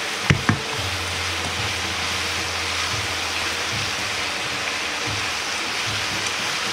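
Yakisoba noodles and vegetables sizzling steadily in a hot frying pan as they are stir-fried with chopsticks while the sauce soaks into the noodles. Two sharp clicks of the chopsticks against the pan about half a second in.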